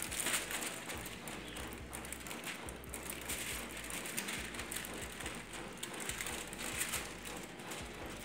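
Aluminium foil crinkling and rustling as it is peeled off a metal baking pan, in irregular crackles.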